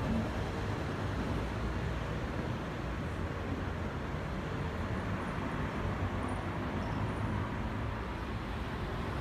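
Steady low rumble of distant road traffic, an even city background hum with no single event standing out.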